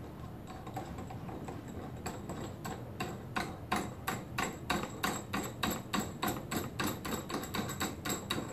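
Metal nut being spun by hand along the threaded bolt of an antenna pole clamp, clicking against the bracket: a run of light clicks, faint at first, then about three a second and louder from about two seconds in.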